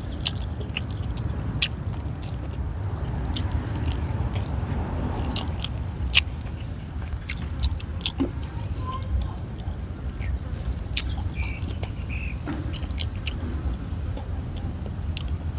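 A person chewing food with the mouth close to the microphone, eating grilled fish and boiled vegetables by hand: irregular sharp clicks and smacks, over a steady low background rumble.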